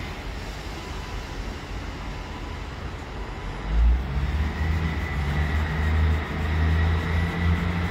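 A train approaching through the station: a heavy low rumble comes in suddenly about four seconds in and keeps building, with a thin high whine above it.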